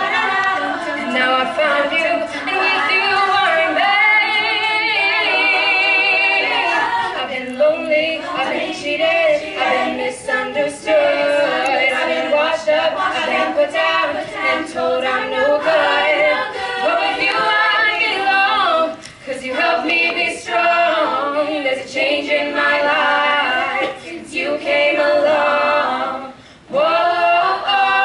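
All-female a cappella group singing in harmony, voices only with no instruments, a lead singer over the backing voices. The singing breaks off briefly twice in the second half.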